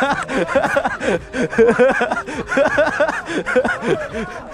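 Several people laughing and chattering together, their voices overlapping.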